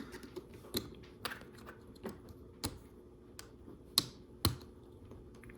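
Plastic Lego Technic pieces clicking and tapping as they are handled and fitted together: a string of separate sharp clicks, the loudest about four seconds in.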